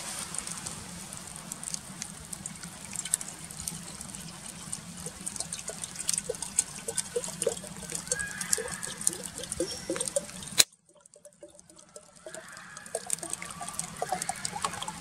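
Water poured from a plastic bottle into a clay teapot, trickling and gurgling, over the crackle of a wood fire burning under the grill. The sound cuts out abruptly about two-thirds through and returns about a second and a half later.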